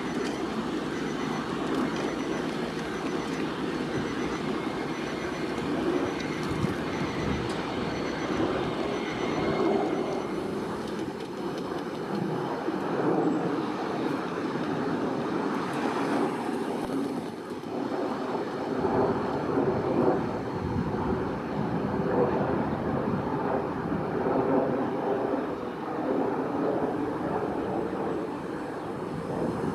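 Jet airliner engines running, a steady rushing noise with a faint high whine over it for the first ten seconds or so.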